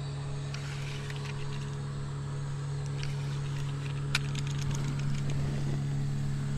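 A motor running steadily, a low even hum. A few sharp clicks sound over it, the loudest about four seconds in.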